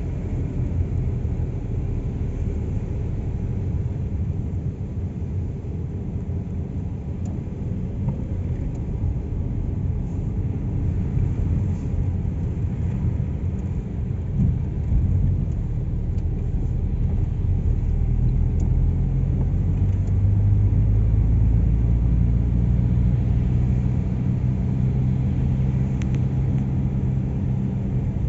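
Car driving on the road: a steady low engine and tyre rumble, which grows louder and fuller about two-thirds of the way through.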